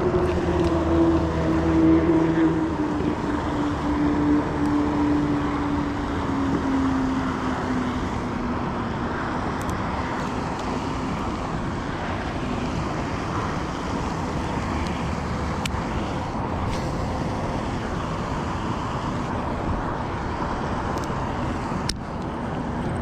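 A passing engine drones, its pitch falling slowly over the first several seconds before it fades into a steady background of traffic-like noise.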